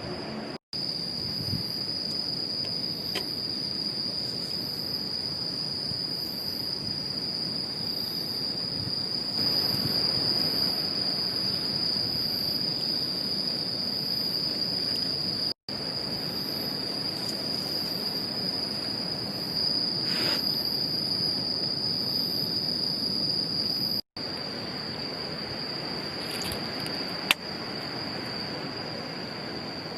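Crickets chirring in a steady high chorus, with a fainter repeating call above it. The sound drops out briefly three times, and there is a single sharp click near the end.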